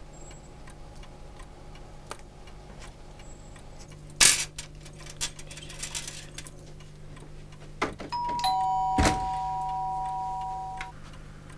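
Shop door bell sounding two steady tones together for nearly three seconds, with a knock about a second into it. A sharp knock comes earlier, about four seconds in, over a low steady hum.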